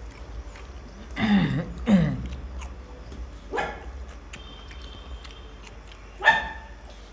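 A dog barking and whining: two falling cries about a second in, another at about three and a half seconds, and a sharper, louder bark near the end.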